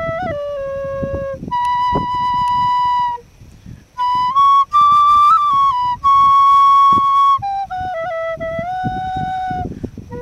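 A flute-toned wind instrument playing a slow melody of long held notes with small bends between pitches, pausing briefly about three seconds in; the highest, loudest phrase comes in the middle. Low rumbling noise with scattered clicks runs underneath.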